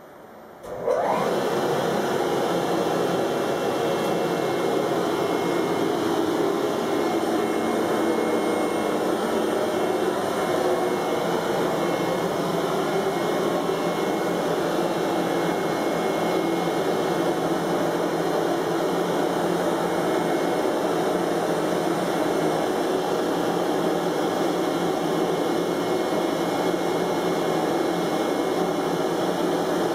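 CNC flatbed cutting table for carbon-fibre prepreg switching on about a second in, then running steadily: a loud, even rushing noise from the vacuum hold-down that keeps the carbon sheet from moving while the head cuts.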